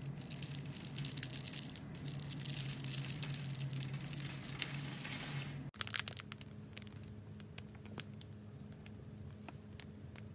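Knife cutting through a bar of soap scored into small cubes: a dense, crackling crunch as the cubes break away. About six seconds in this gives way to quieter, scattered clicks and soft pops as foam is piped from a piping bag onto clear slime, over a faint steady hum.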